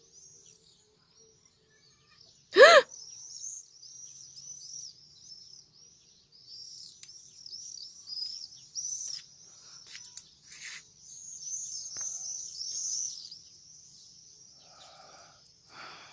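A flock of swifts screaming overhead: many short, high, screechy calls overlapping almost continuously. A single brief, loud, pitched cry sounds once, about two and a half seconds in.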